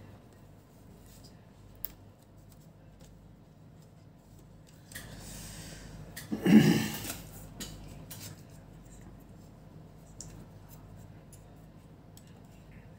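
Small clicks and scrapes of plastic and metal laptop parts being handled as a motherboard is pressed into its case. A scraping rub about five seconds in is followed by a louder knock, the loudest sound here.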